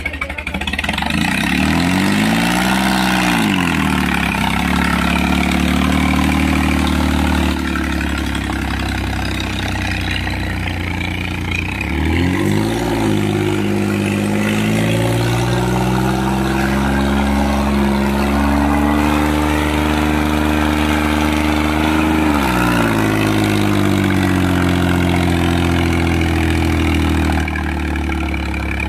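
Mahindra 265 DI tractor's three-cylinder diesel engine running steadily under load while pulling a disc harrow through the soil. Its pitch swells up and back down briefly three times.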